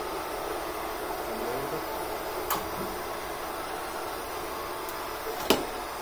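ILIFE V7s Plus robot vacuum cleaner running with a steady hiss from its fan and brushes. There are two sharp clicks, one about halfway through and a louder one near the end.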